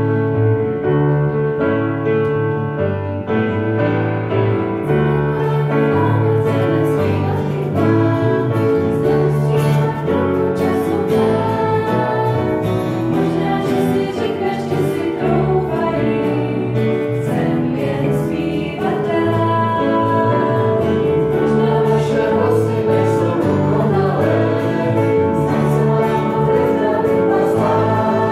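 Digital piano accompanying a Czech worship song, joined a few seconds in by a small group of singers.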